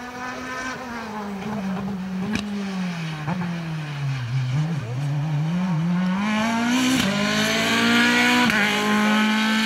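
Single-seater hill-climb race car's engine: the revs fall steadily as it slows, then climb again as it accelerates, with two quick gear changes near the end, growing louder as it approaches.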